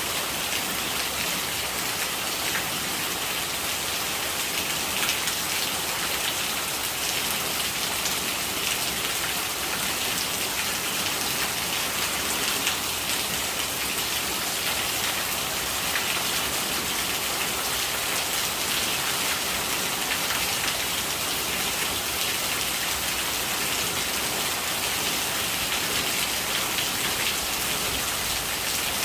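Steady rain falling, with dense pattering of drops and rainwater gurgling as it runs.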